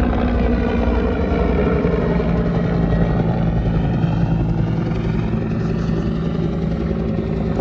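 Police helicopter flying past low overhead: steady rotor beat under a turbine whine that falls in pitch as it passes.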